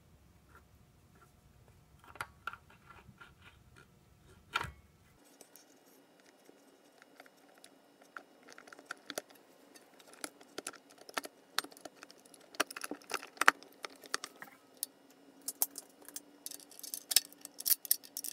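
Metal transmission parts clinking and clicking inside a 42RE automatic transmission case as it is reassembled by hand. A few light clicks come about two seconds in, then quick, irregular clinks grow busier and louder toward the end.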